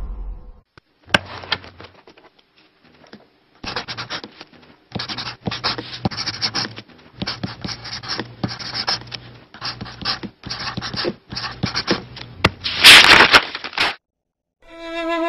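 A pencil scratching across paper in quick, uneven strokes as someone writes by hand, with a louder scratch near the end.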